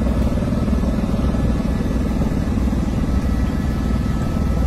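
Helicopter in flight heard from inside the cabin: a loud, steady drone of engine and rotor.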